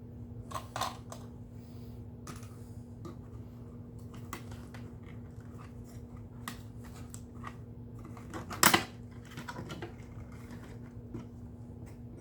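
Small clicks and taps of a screwdriver and hands working the plastic housing and screws of a Hoover WindTunnel vacuum, with one louder sharp clack about two-thirds of the way through.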